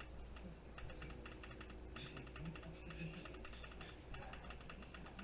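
Quick, light clicking and rattling of small metal parts as a toaster's contact board is worked apart.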